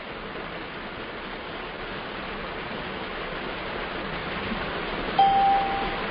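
Steady hissing noise that slowly grows louder, with a short, steady beep about five seconds in.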